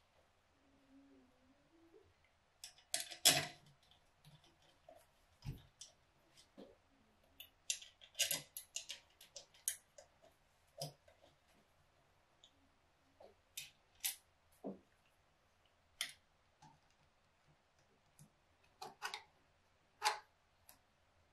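Irregular small metallic clicks and taps as screws are handled, set into the carburetor's top plate and started with a screwdriver. The sharpest click comes a little over three seconds in.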